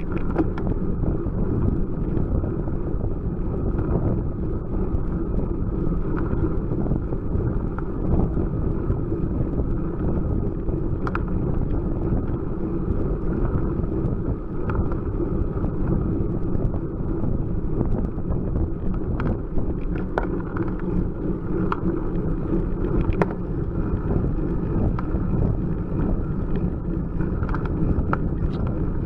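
Steady wind rumble on a bike-mounted camera's microphone, mixed with tyre noise on tarmac, as a road bicycle climbs at a slow pace; small clicks and rattles come through now and then.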